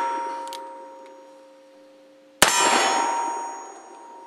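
A black-powder .44 Remington New Model Army cap-and-ball revolver fires one shot about two and a half seconds in, followed by a long metallic ringing that fades away over about two seconds. At the start, the ringing from the shot before is still dying down.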